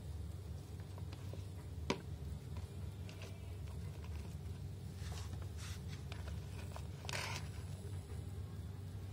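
A hand rummaging through cut vegetables in a plastic bowl, with soft rustles, a sharp click about two seconds in and a louder scraping rustle about seven seconds in, over a faint steady low hum.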